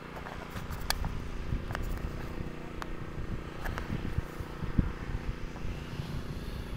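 An engine running steadily at an even pitch, with uneven low rumbles and a few sharp clicks over it.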